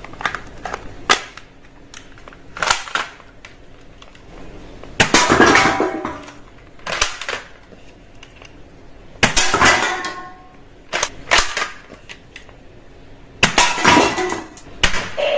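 Toy gun being fired: bursts of sharp plastic clacks and pops every second or two, the longest and loudest about five and ten seconds in.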